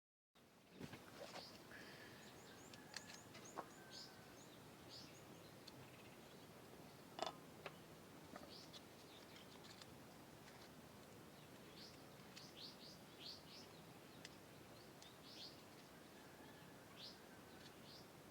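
Faint, scattered bird chirps over a quiet outdoor background, with a few sharp clicks, the loudest about seven seconds in.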